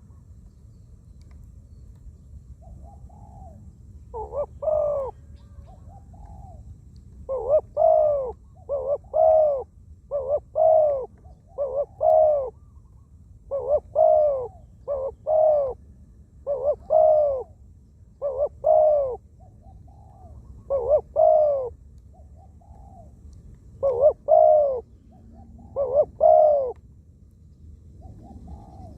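Spotted doves cooing: a nearby bird gives loud, repeated phrases of two or three arched coo notes, while a fainter dove coos in the gaps between them.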